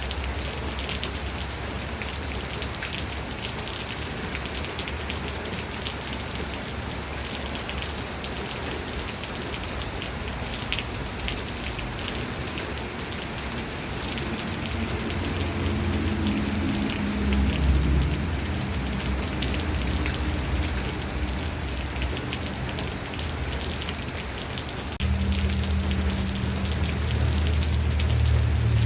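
Steady rain falling on a surface, a dense patter of drops. A low rumble underneath grows louder from about halfway and again near the end.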